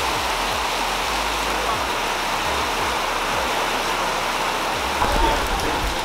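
Steady rain falling on sheet-metal shed roofs and wet paving, with a low bump about five seconds in.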